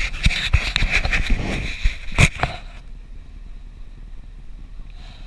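Rubbing and clicking from a dog-worn action camera as the dog shifts about on a vehicle's rubber floor mat, with one sharp knock about two seconds in. After that it settles to the steady low hum of the vehicle's cabin.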